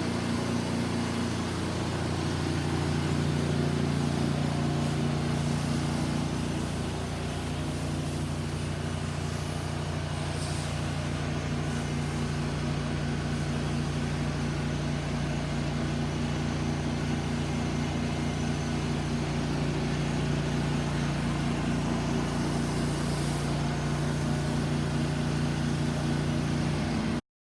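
Gas engine of a pressure-washing rig running at a steady speed with a constant drone, over a hiss of spray noise; it cuts off suddenly near the end.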